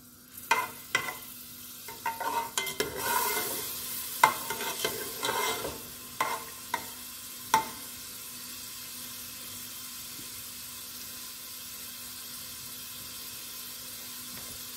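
Slotted spatula scraping and knocking against a non-stick pot while butter and garlic sizzle, with a string of sharp knocks up to about seven and a half seconds in. After that the stirring stops and only a steady, gentle sizzle of the melted butter and garlic goes on.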